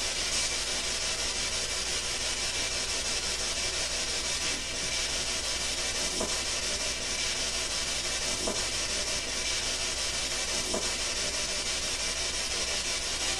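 Steady recording hiss with a low hum underneath, in a quiet room, broken only by a few faint short sounds about six, eight and eleven seconds in.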